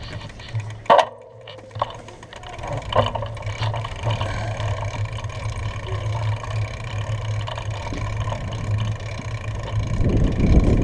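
Steady rumble and rattle of a bicycle rolling over a cracked concrete driveway, picked up by a camera mounted on the bike, with a sharp knock about a second in and the rumble growing louder near the end.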